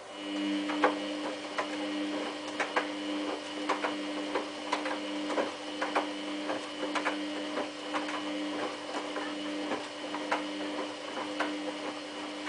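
Samsung WF8804RPA washing machine running: a steady low two-tone hum that starts abruptly and cuts off near the end, with irregular sharp clicks and taps throughout.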